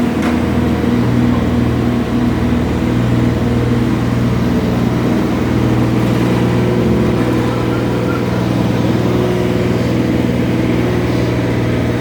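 A machine engine running steadily with an even hum and no sharp changes.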